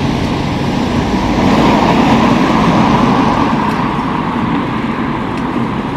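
Road traffic noise from a busy road: a vehicle passes close by, its tyre and engine noise swelling about two seconds in and then fading.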